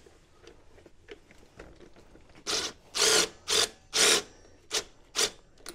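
Hand ratchet wrench clicking in six short, loud rasping strokes over about three seconds, loosening the 14 mm rear brake adjuster to slacken the rear brake.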